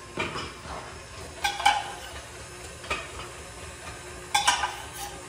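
Metal clinks and clatters against a stainless-steel mixing bowl on a stand mixer, a handful of separate knocks a second or so apart, the loudest cluster near the end.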